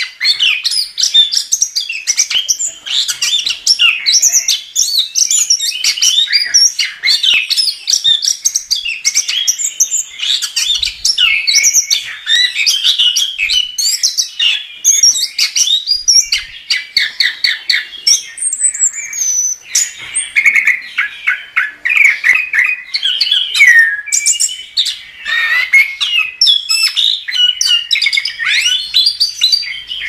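Chestnut-capped thrush (anis kembang) singing energetically without a break: a loud, dense run of quick, varied chirps, whistled phrases and rapid trills, with a falling whistle about two-thirds of the way in.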